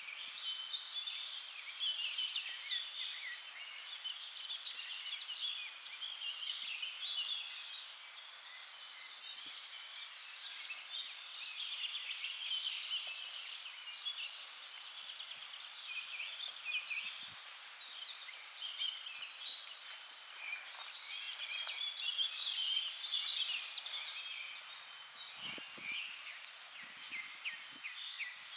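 A chorus of small birds chirping and singing together without pause. A few soft low thumps come near the end.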